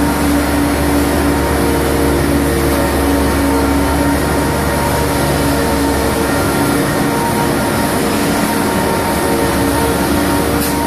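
Nicolas self-propelled modular transporter running steadily as it drives under load with a ship section, a constant mechanical hum made of several steady tones.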